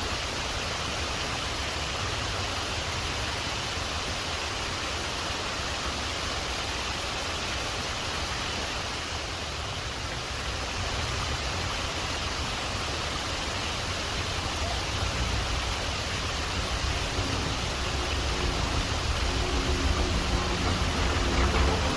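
Steady rushing of a waterfall, an even roar of falling water.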